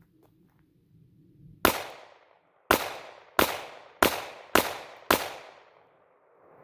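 Glock 42 .380 pistol firing six shots of Remington High Terminal Performance 88 grain hollow points: the first about a second and a half in, then five more at roughly half-second to one-second spacing, each shot with a short fading echo. The string runs through without a stoppage.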